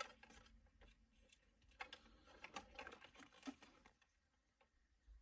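Faint, irregular small clicks and rustling of a wiring harness and plastic connectors being handled and plugged into the back of a car head unit.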